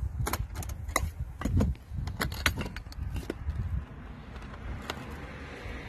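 Metal catches of an aluminium carry case clicking and rattling as they are unlatched and the lid is lifted, a quick run of sharp clicks over the first three seconds. Low wind rumble on the microphone throughout.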